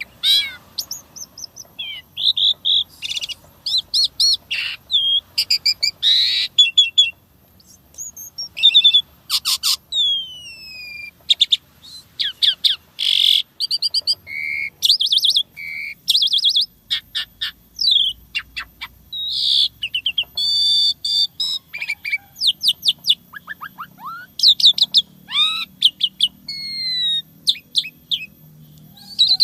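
Asian pied starling (jalak suren) singing a fast, varied song of whistles, falling slurred notes, buzzy trills and sharp clicks, packed with 'isian' fill-in phrases copied from other birds.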